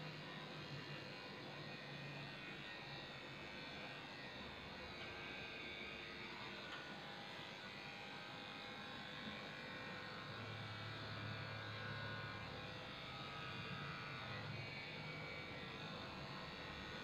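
Electric dog grooming clippers running steadily as they shave down a Shih Tzu's coat.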